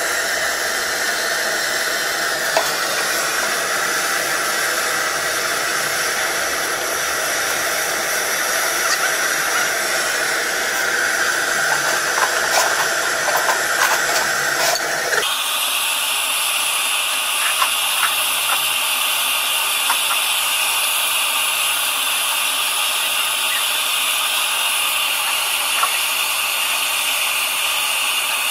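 Steady hiss of a gas torch flame burning, with a few light metallic clicks from hand tools. The hiss changes tone abruptly about halfway through.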